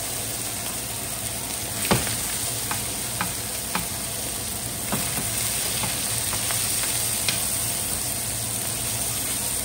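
Sirloin steaks searing in butter with garlic and rosemary in a frying pan, a steady sizzle. A few sharp clicks from metal tongs tapping the pan, the loudest about two seconds in.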